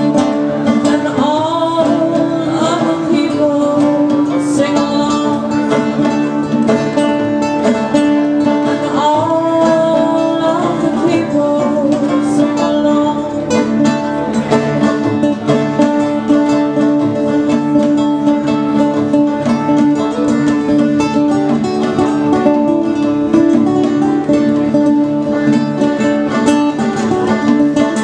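Live acoustic folk music: a nylon-string acoustic guitar and a banjo playing together, with a voice singing.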